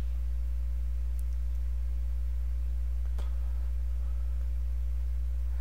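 Steady low electrical hum with several fainter steady tones above it, and a faint click about three seconds in.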